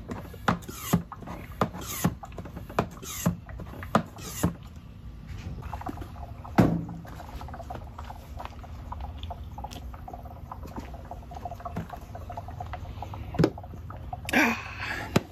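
Hand-operated vacuum fluid extractor being pumped by hand, about four strokes, each push and pull giving a short sharp squeak or click. After a knock, the faint crackle and dribble of engine oil being sucked up from the oil pan into the extractor under the vacuum it has built. Near the end, a drink can in a foam koozie is set down on the car's cowl.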